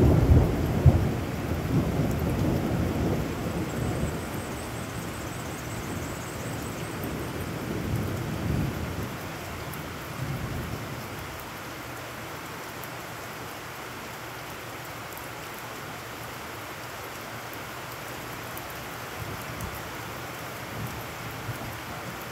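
Heavy rain falling steadily on a puddled yard. A loud crack of thunder right at the start rolls on for a few seconds, and a second, weaker rumble of thunder comes about eight seconds in.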